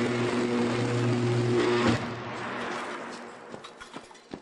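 High-voltage electric arc drawn by substation air-break switches opening under power: a loud buzzing hiss over a low electrical hum that cuts off abruptly about two seconds in as the arc breaks, leaving fainter crackling clicks.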